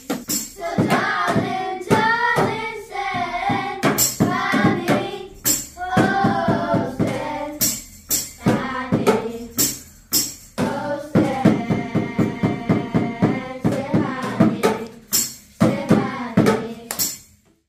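A children's percussion ensemble playing a tune on boomwhackers, with bongos and hand drums beaten in a steady rhythm and voices singing the melody over it. The music stops just before the end.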